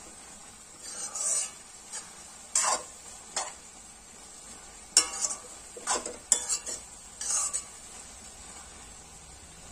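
Metal spoon scraping and clinking against a metal kadai as noodles are stir-fried, over a steady sizzle. The strokes come in irregular clusters and stop about eight seconds in.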